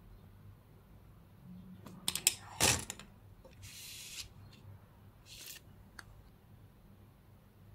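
Clear plastic protective sleeve on a fan makeup brush crinkling and rustling as it is handled and slid over the bristles. There are a few sharp clicks and a loud crackle about two and a half seconds in, then two short rustles and a final click.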